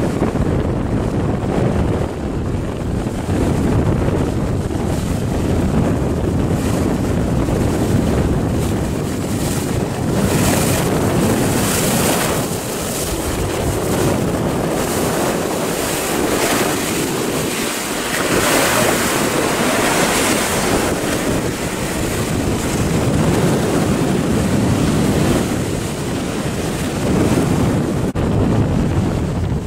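Wind buffeting the microphone over the rush of choppy sea and breaking waves, with the hiss of surf swelling twice around the middle.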